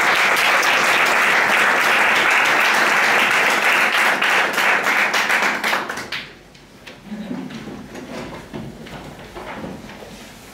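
Small audience applauding, the clapping stopping about six seconds in. After that only faint scattered knocks and rustles.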